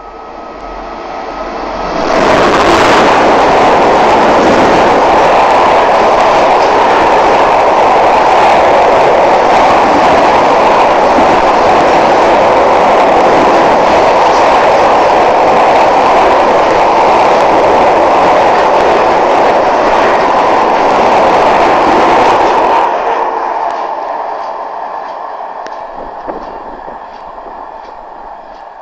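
A freight train hauled by a class 66 diesel locomotive passing close by at speed: a loud rush as the locomotive goes by about two seconds in, then about twenty seconds of wagons running over the rails, and the noise dies away as the train leaves.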